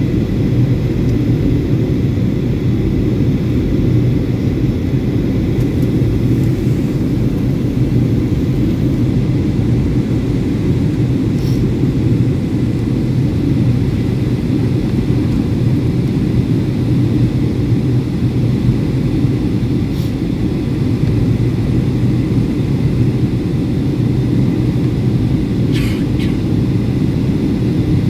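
Steady low roar of Boeing 757-200 cabin noise in flight: the engines and airflow as heard from a window seat. A few faint brief clicks can be heard over it.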